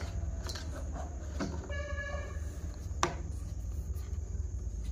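Sharp clicks of buttons being pressed on a small handheld infrared remote, the loudest about three seconds in, over a steady low hum. A short pitched tone sounds briefly about two seconds in.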